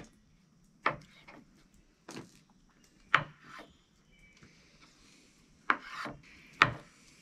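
Kitchen knife slicing soft canned potatoes on a wooden cutting board: the blade knocks on the board about six times, at irregular intervals roughly a second apart.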